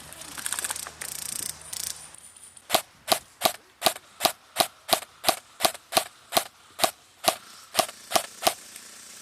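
Airsoft rifle firing a steady string of about sixteen single shots, roughly three a second, starting about three seconds in.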